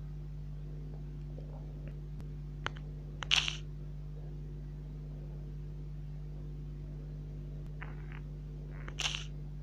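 Steady low electrical hum of room tone, with a click and a short hissy sound about three seconds in and another short hissy sound near the end.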